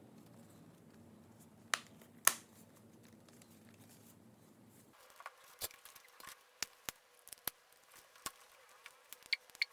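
Handling noise of small hard objects: two sharp clicks about two seconds in, then a quicker string of small clicks and taps from about five seconds on.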